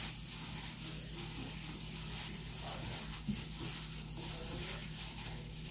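Dry green rice flakes and granulated sugar being stirred together in a bowl: a soft, steady rustling hiss with faint scratchy scrapes, over a low steady hum.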